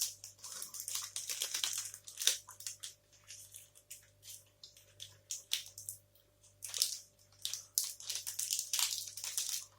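Close-miked chewing of a chocolate protein bar: short sticky clicks and crackles of the mouth and teeth, in two busy spells with a quieter stretch in the middle.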